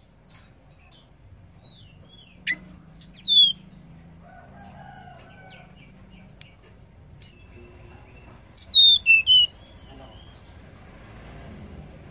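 Blue flycatcher (tledekan) calling: two short phrases about six seconds apart, each four or five clear whistled notes stepping down in pitch.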